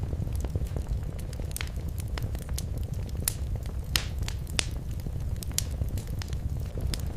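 Wood fire crackling in a fireplace: irregular sharp snaps and pops, a few louder ones around the middle, over a steady low rumble of the flames.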